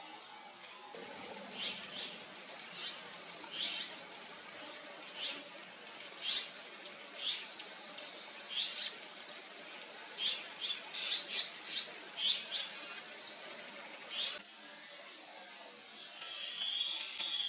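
Steady high-pitched insect trill with a bird repeating short, sharp downward-sweeping calls, about one a second and coming quicker for a couple of seconds past the middle. The background changes abruptly about a second in and again near the end.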